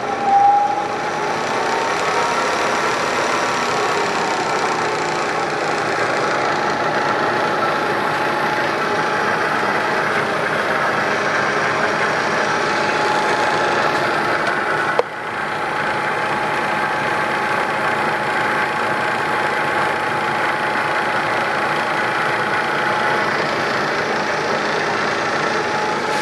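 Bridgeport Series I 2 hp milling head's spindle running steadily with no collet fitted, a steady whine over mechanical hum; the whine wavers in pitch over the first couple of seconds, then holds. A single sharp click with a brief dip in the sound about halfway through.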